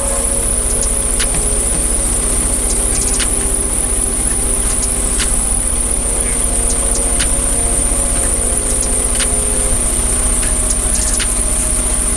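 Semi-truck diesel engine idling steadily, a low even rumble, with scattered short clicks and scrapes over it.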